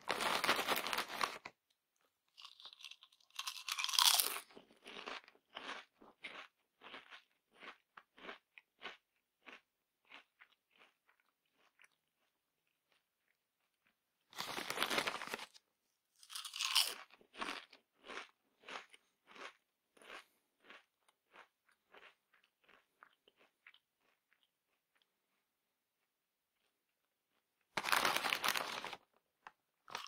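Crunchy potato chips being eaten close up: three times a dense crackle about a second long, then a crisp bite and a run of crunchy chewing, about two chews a second, fading out over several seconds.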